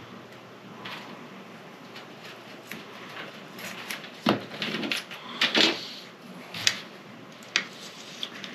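Small clicks and knocks from rod-repair parts and tools being handled on a workbench, with several sharp taps in the second half.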